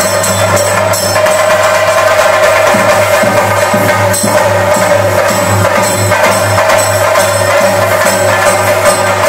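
Chenda drums beaten loudly and without a break in a temple theyyam rhythm, many sharp strokes over a steady ringing band.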